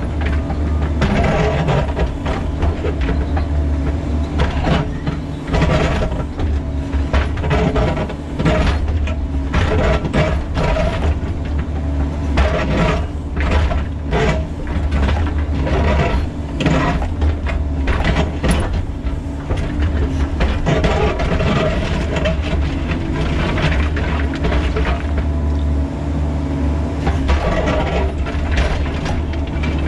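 Bobcat E45 mini excavator's diesel engine running steadily under hydraulic load, with the steel bucket scraping and knocking against rock in the trench again and again.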